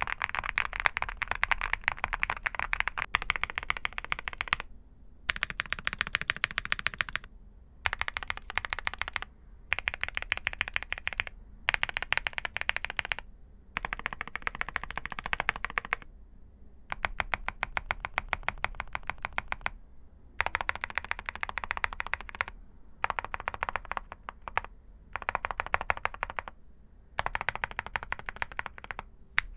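Typing on a Crush80 mechanical keyboard with Kailh Cocoa linear switches: rapid key clacks in bursts of a few seconds, broken by short pauses.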